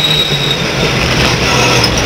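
Race pickup truck's engine heard from inside the cab, its note dropping early on and then running low and steady; a high whine fades out in the first half-second.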